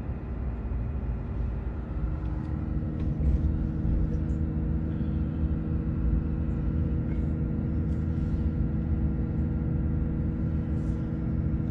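A car moving slowly, with a steady low rumble of engine and road noise and a steady hum that sets in about two seconds in.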